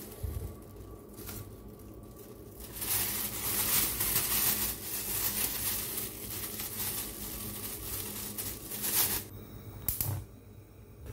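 A thin plastic bag crinkling and rustling as it is handled and eggplants are put into it, louder from about three seconds in. It stops suddenly near the end, followed by a single sharp click.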